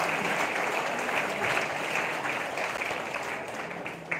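Audience applauding, easing off toward the end, with a sharp click just before it stops.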